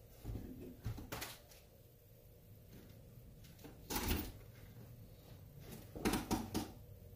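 A few short knocks and clicks of knives and small tools being handled and set down on a workbench, in three clusters: near the start, about four seconds in, and around six seconds in.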